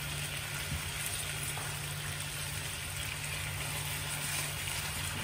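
Chicken pieces sizzling in a frying pan of bubbling teriyaki sauce: a steady hiss, with a low steady hum underneath.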